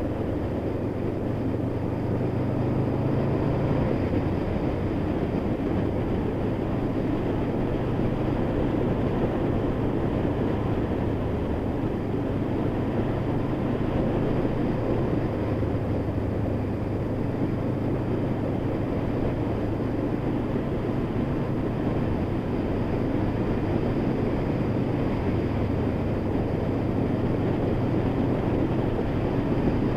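Honda VFR800 motorcycle's V4 engine running at a steady cruise under way, with a constant rushing noise of air and road over it.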